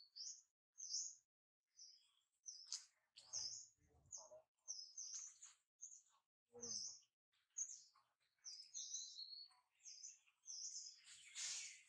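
Small birds chirping faintly, short high chirps repeating several times a second, with a few brief lower sounds in the middle and a louder rush of noise near the end.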